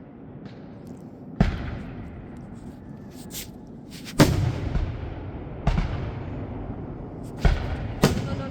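Aerial fireworks shells bursting overhead: loud booms about a second and a half in, around four seconds, and several more near the end, each followed by a long rolling rumble, with a few sharp crackles in between.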